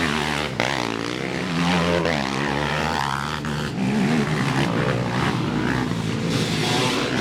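ATV engine running and revving, its pitch rising and falling.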